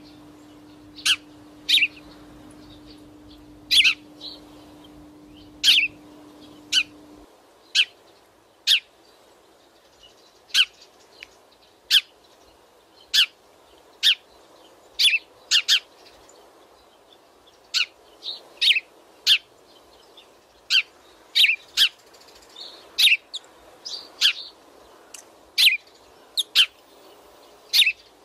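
Eurasian tree sparrows chirping: short, sharp single chirps repeated irregularly about once a second. A faint low hum stops about a quarter of the way through.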